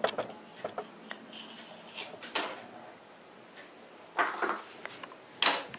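Scattered sharp knocks and clatters of a wooden rolling pin and other kitchen things being set down and handled on a granite countertop.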